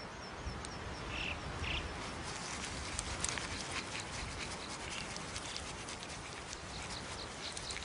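Open-air natural ambience: a steady hiss with scattered small ticks and patters and a few short, high bird calls.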